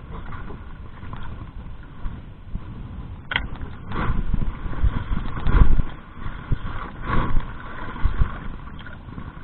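Wind rumbling on the microphone and choppy water slapping around a small outrigger boat, swelling in gusts from about four to seven seconds in.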